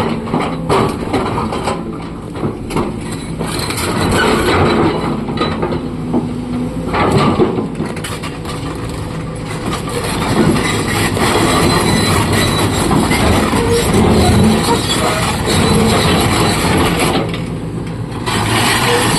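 SANY excavator at work: a diesel engine running steadily under repeated clanks, rattles and knocks from the machine and its load.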